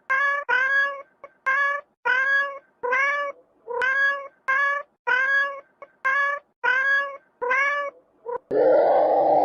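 A cat meowing over and over: about fourteen short, high mews in quick succession, each rising and falling in pitch. Near the end a louder, noisier sound cuts in.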